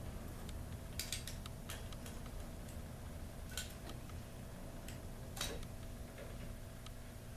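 A handful of sharp small clicks and taps, spaced irregularly, from hands working the plastic wire connectors and terminals on a garage door opener's logic board.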